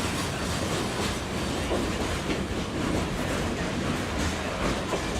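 Freight train rolling past, the steady rumble of its cars broken by faint, irregular wheel clicks over rail joints.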